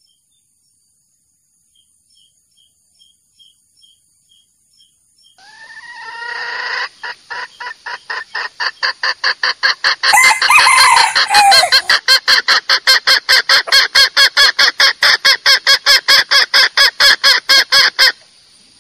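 Red junglefowl calls: after about five seconds of near silence, a rapid, even run of clucks at about six a second, with a gliding crow-like call about ten seconds in; the run cuts off suddenly near the end. It is a lure recording used to draw wild junglefowl cocks into a trap.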